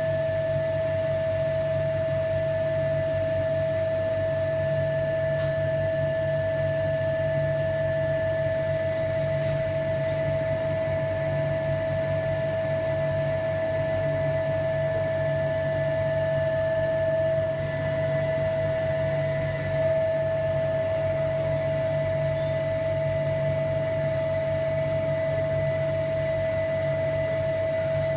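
Vacuum pump running steadily, a low hum with a constant high whine, as it draws vacuum on the bagged carbon-fibre layup.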